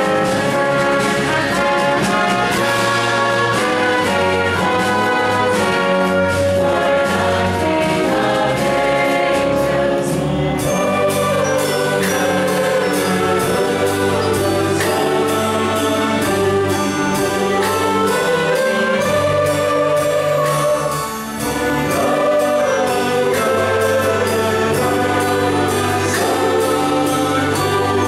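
Choir singing with a full orchestra, brass prominent. Wavering sung lines come to the fore from about ten seconds in.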